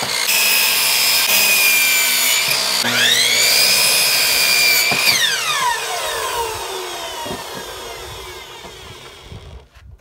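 Delta miter saw's motor running at full speed as it cuts a wooden board, with a high whine over the noise of the blade in the wood. The whine dips briefly and spins up again about three seconds in. It is released about five seconds in, and the blade winds down with a falling whine over about four seconds.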